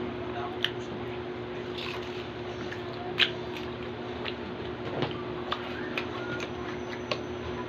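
Mouth-close chewing of crispy chicharon and pork fat: soft wet chewing broken by sharp single crunches every second or so, the loudest about three seconds in. A steady low hum sits underneath.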